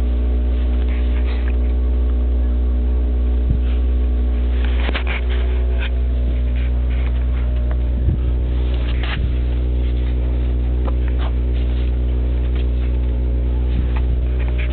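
A steady low hum with several evenly spaced tones, unchanging throughout, with a few faint short scrapes and taps on top.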